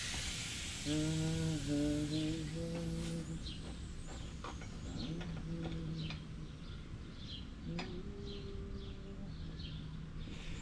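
A man humming a slow tune in low held notes, with small birds chirping over and over in the background and a few light clicks. A hiss fades out in the first second or two.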